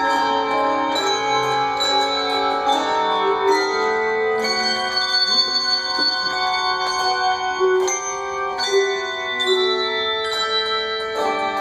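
Handbell choir playing a piece: tuned handbells struck in chords and melody, each note ringing on over the next.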